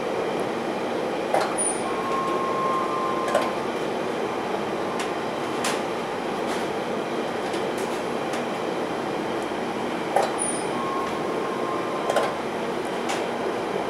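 London Underground Central line train (1992 stock) running along the track, heard from inside the carriage as a steady rumble of wheels on rail. Rail-joint clacks come twice, each time as a pair about two seconds apart: a couple of seconds in and again near the end.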